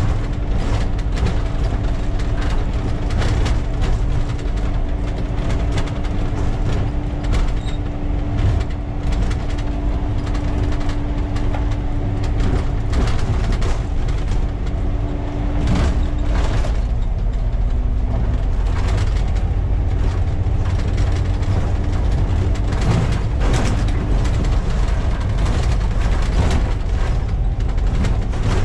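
Volvo B7TL double-decker bus's inline-six diesel engine running loud and steady while under way, heard from the driver's cab. A steady whine rides over it, breaking off about sixteen seconds in, returning a couple of seconds later and stopping a few seconds before the end. Frequent rattles and knocks run throughout.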